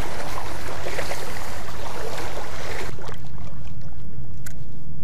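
Water sloshing and splashing around a wader's legs as he walks through knee-deep water, over a steady low rumble of wind on the microphone. About three seconds in the sloshing cuts off abruptly, leaving the rumble and a single faint click.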